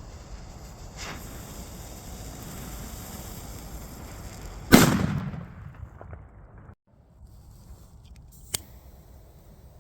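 One loud firework bang a little under five seconds in, trailing off over about a second, with a fainter sharp pop near the end.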